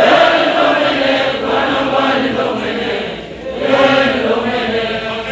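A congregation singing together, many voices in chorus holding long sung notes.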